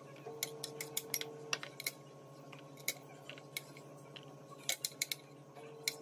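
A metal spoon scraping and tapping on a glass cutting board while scooping cooked corn kernels into a plastic tub: scattered light clicks, some in quick clusters, over a faint steady hum.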